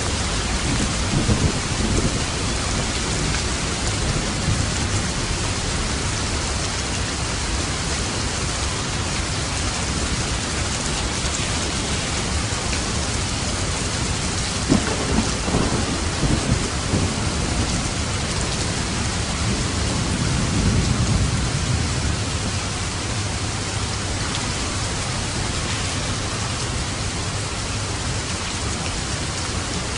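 Steady rain falling, with low rumbles of thunder about a second in, again around the middle and once more about two-thirds of the way through.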